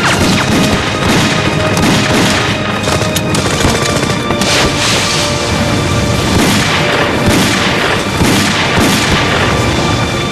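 Film battle effects: explosions booming every second or so, mixed with gunfire, over background music with held tones.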